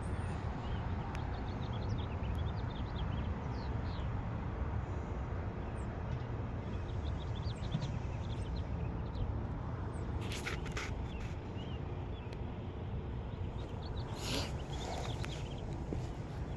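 Outdoor ambience: a steady low rumble with small birds chirping on and off, and a couple of brief scuffs about two-thirds of the way in and again near the end.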